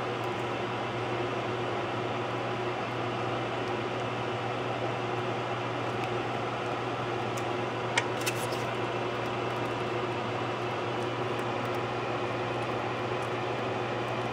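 Steady mechanical hum with a constant low drone, like a fan or air handler running. A sharp click about eight seconds in, followed by a fainter one.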